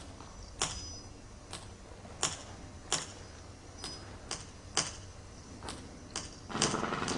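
A series of sharp, irregularly spaced clicks, roughly one or two a second. About six and a half seconds in, a denser buzzing rattle joins them.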